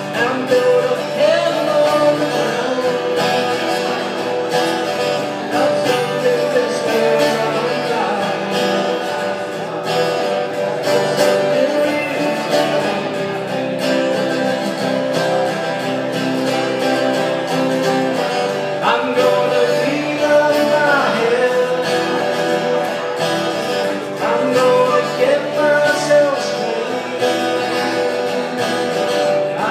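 Two acoustic guitars played together live, strummed and picked in a steady song accompaniment.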